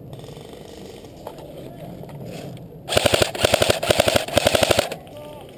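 Airsoft rifle firing on full auto: about two seconds of rapid, evenly spaced shots in quick bursts, starting about three seconds in.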